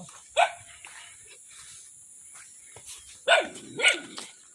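A dog barking: one bark about half a second in, then two more in quick succession a little after three seconds.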